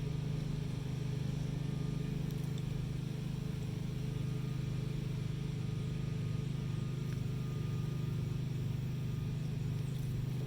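A steady low mechanical drone with a fast, even pulse, holding unchanged throughout.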